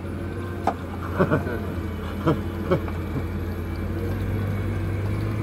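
Boat engine running with a steady low hum. A few short knocks sound in the first three seconds.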